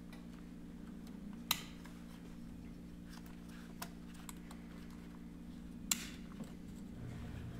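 Light clicks and ticks of a plastic wiring-harness connector and wires being handled, with two sharper clicks about a second and a half in and again about six seconds in, over a steady low hum.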